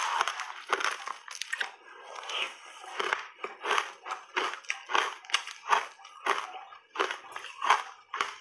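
Close-miked chewing of frozen shaved ice coated in matcha powder: crunching in the mouth. A dense run of crunches eases off about two seconds in, then steady crunching chews follow at about two a second.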